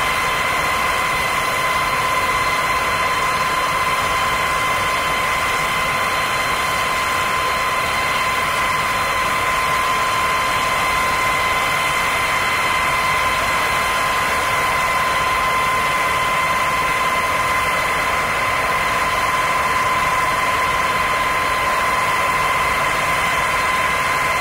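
Flightline ground-support equipment running steadily: a constant engine or turbine drone with a steady high-pitched whine at two pitches over it.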